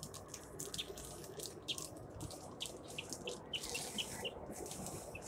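Plastic wrapping and packing tape crinkling and rustling in quick, irregular crackles as a cane wrapped in plastic is peeled and slid out of a cardboard shipping box.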